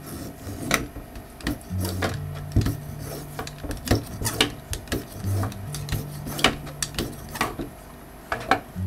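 Vegetable peeler scraping the skin off a raw carrot in quick, scratchy strokes, about two or three a second.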